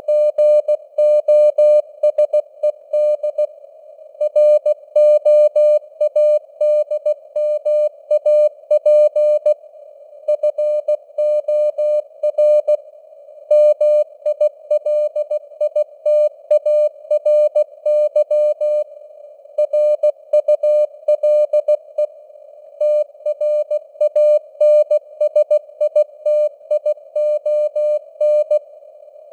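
Morse code sent at 16 words per minute: a single steady mid-pitched tone keyed on and off in dots and dashes, with short gaps between letters and longer ones between words, over a faint hiss of simulated radio noise.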